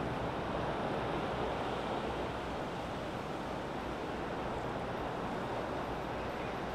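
Steady rushing outdoor ambience: an even noise, like wind, with no distinct events.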